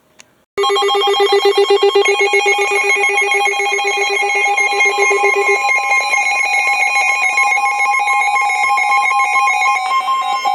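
Electronic emergency alert tone: a loud, harsh, warbling signal made of several tones that starts about half a second in and keeps going. Its lowest tone drops out about halfway through.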